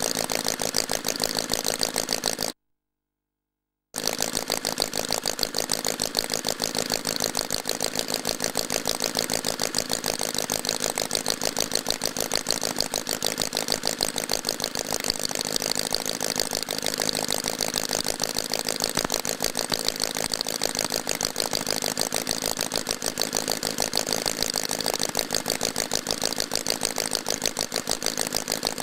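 A 25cc horizontally opposed four-stroke model engine (L C Mason's Mastiff) running steadily, a fast, even stream of firing pulses. The sound drops out completely for about a second and a half, starting about two and a half seconds in.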